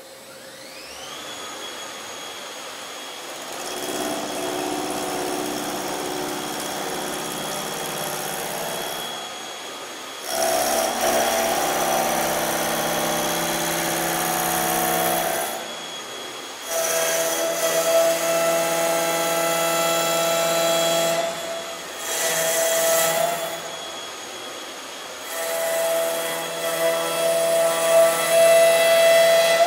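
CNC wood lathe shaping a spinning wooden blank into a leg: a spindle motor whines up in pitch in the first second, then the router cutter runs against the turning wood in a series of louder cutting passes of a few seconds each, from about ten seconds in.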